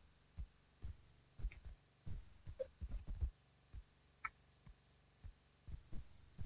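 Irregular low, dull thumps picked up by an outdoor camera microphone, one or two a second, with a few faint, brief chirps in between.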